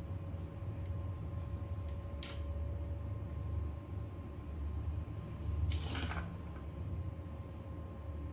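Steady low hum with a faint steady tone. Over it are two short handling noises of small tools or parts on a workbench: a brief one a little over two seconds in and a longer one about six seconds in.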